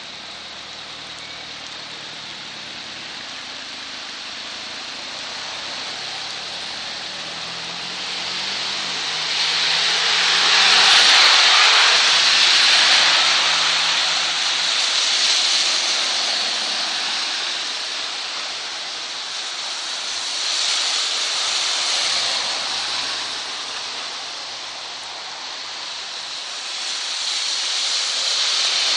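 Heavy rain pouring down on a wet street, a steady hiss, while cars drive through the water on the road: their tyre swish swells up and fades several times, loudest about ten to thirteen seconds in.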